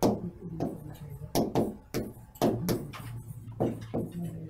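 Marker pen writing on a whiteboard: a run of short separate strokes, two or three a second.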